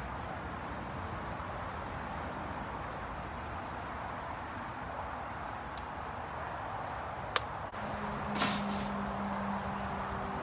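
Water pouring steadily from a plastic bottle into an upright charcoal smoker's metal water pan. About seven seconds in comes a sharp click, then a metal clank as the smoker's steel sections are set together.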